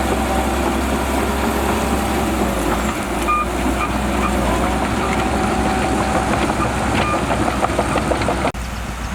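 Shantui DH17C2 bulldozer's diesel engine running steadily under work, with a few short high beeps around three to four seconds in and again about seven seconds in. The sound changes abruptly near the end.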